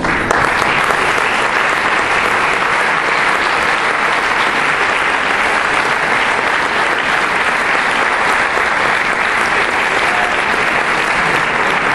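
Audience applause, a dense steady clapping that sets in as the dance music ends.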